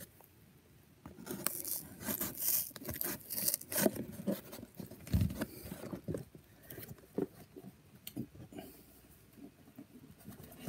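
A cardboard shipping box being handled and opened by hand: irregular scraping, rustling and small knocks of cardboard and packing tape.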